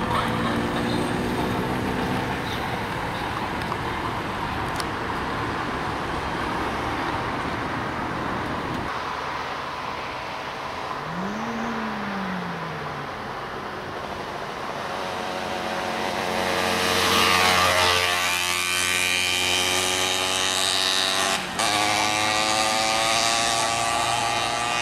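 Road traffic passing close by: vehicle engines and tyre noise, one engine dropping in pitch as it goes past about two-thirds of the way in. Near the end a motorcycle engine runs at low speed.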